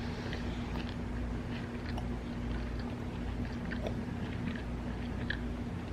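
A person chewing a bite of grinder sandwich on crusty ciabatta, with small irregular crunching clicks. A steady low hum runs under it.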